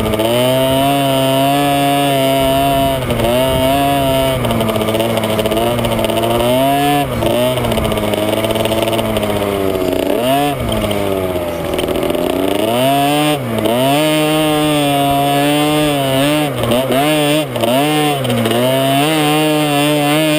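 Small KTM two-stroke dirt bike engine running hard under racing load. The pitch dips briefly several times as the throttle is eased or a gear is changed. About halfway through the revs fall away in a long, slow sag, then climb back up.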